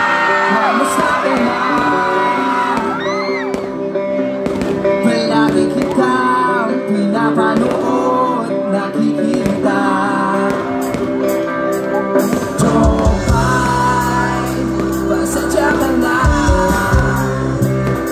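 Live band playing with a singer. Deep bass notes come in past the middle.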